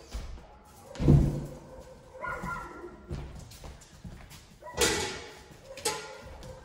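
A heavy thud about a second in, then lighter knocks and a ringing clatter near the end, as training props are handled and set down on a vinyl plank floor.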